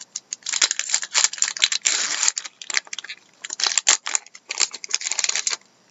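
A foil trading-card pack wrapper being torn open and crinkled, a run of sharp crackles and snaps in several bunched bursts.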